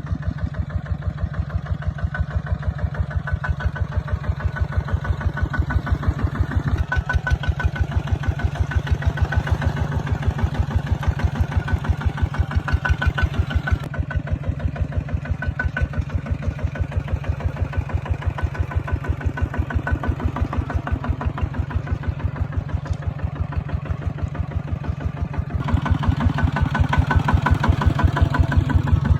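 Kubota ZT140 single-cylinder diesel engine running steadily, with an even rapid chugging of about ten beats a second; it gets louder about 26 seconds in.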